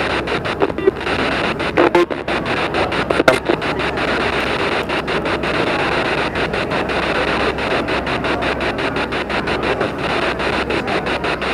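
P-SB7 spirit box sweeping through radio frequencies: a steady rush of radio static chopped by rapid, evenly spaced clicks several times a second. A few brief louder snatches of sound come through in the first few seconds.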